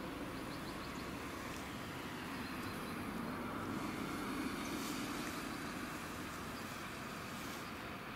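ROPA self-propelled harvester running in the field: a steady engine and machinery drone that swells slightly about four seconds in.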